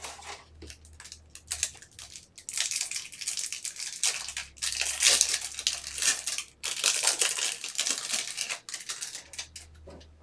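Trading-card packaging being torn open and crinkled by hand: a busy run of tearing and crinkling rustles, heaviest in the middle and fading out near the end.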